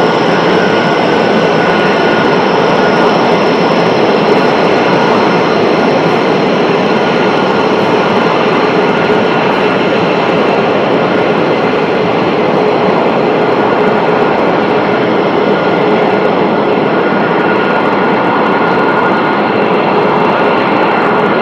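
Jet aircraft engine running: a loud, steady rush of noise with several steady whining tones on top.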